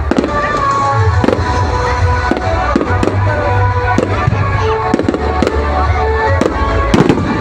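Aerial fireworks bursting overhead, a string of irregular bangs about twice a second, over loud music with a strong bass.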